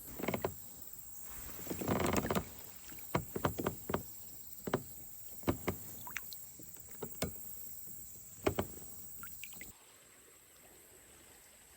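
Scattered knocks and clicks of handling on a plastic kayak, with a brief rush of noise about two seconds in. The sound cuts off abruptly near the end.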